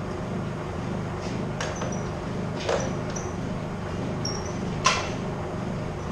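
Metal clinks and knocks from tools and engine parts as a motorcycle engine is worked loose for removal from its frame. Half a dozen short hits are scattered through, the loudest a sharp clank about five seconds in, over a steady low hum.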